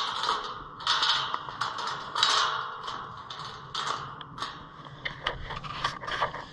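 Metal chain rattling and clinking against a steel tube gate as it is handled, with crunching rustles from hay or straw underfoot and a few sharp clicks near the end.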